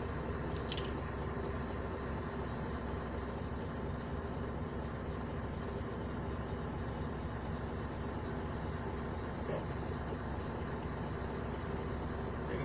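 Scania V8 diesel truck engine running steadily while the truck creeps along at low speed, heard from inside the cab.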